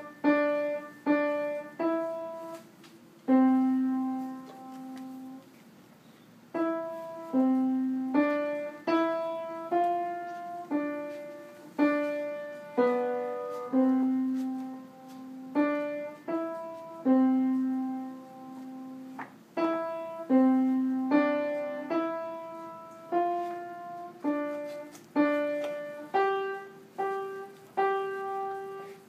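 Upright piano played slowly, one note or chord at a time, each struck sharply and left to ring and fade. About a quarter of the way in, one low note is held for a couple of seconds before the playing goes on.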